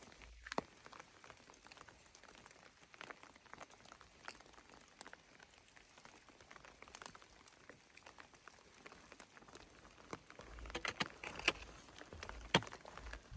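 Light rain pattering, with scattered drops ticking on leaves and gear. Near the end comes a louder stretch of rustling and clicks.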